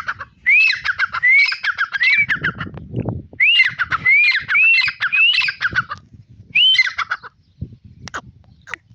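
Grey francolin (tetar) calling loudly in three bouts, each a quick run of repeated rising-then-falling notes, the last one short. A few sharp clicks near the end.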